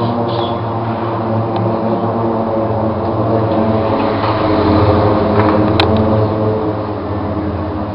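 Steady droning engine noise from aircraft flying over in a parade flyover, with a single sharp click about six seconds in.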